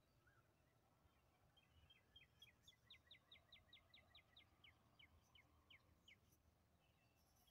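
A faint bird call: a run of about twenty short, quick down-slurred notes, about six a second, that slow down before stopping about six seconds in, over a low steady rumble.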